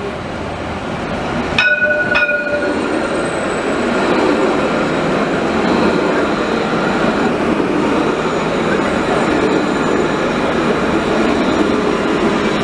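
Citadis light-rail tram approaching and passing close by, its wheels and running gear getting louder as it nears. Two short horn toots sound about two seconds in, and a faint steady high whine runs under the pass.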